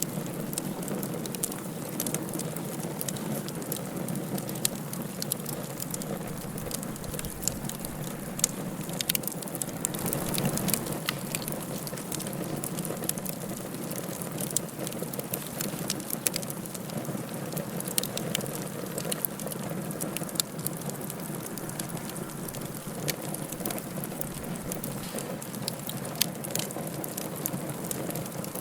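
Wood fire in a fireplace crackling, with frequent sharp pops and snaps over a steady hiss of burning.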